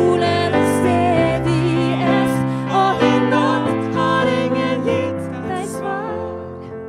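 Slow, gentle song with piano accompaniment and a wavering melody line, getting quieter toward the end.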